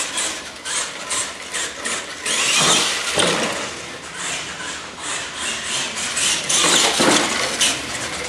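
R/C monster truck driving on a concrete floor: its motor revs up and back down in bursts, twice, amid a rough clatter of tires scrubbing and short knocks as it bounces.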